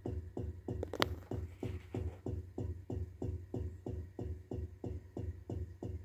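Refrigerator making a rapid, even pulsing noise, about four beats a second, over a steady low hum, with one sharp click about a second in. It has gone on without stopping for more than two minutes, which the owner takes as a sign that the fridge is failing.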